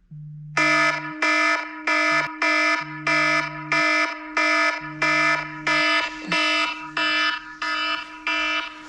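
Electronic alarm beeping loudly and evenly, about two beeps a second, over a steady underlying tone.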